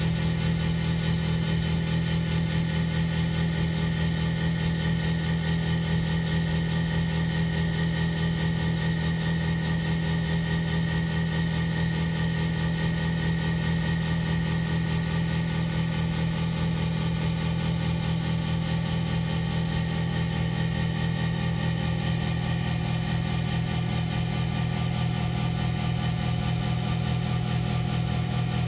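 Diamond-cut wheel lathe running steadily, spinning an alloy wheel as its cutting tool machines across the face: a constant mechanical hum with a faint high whine in the middle.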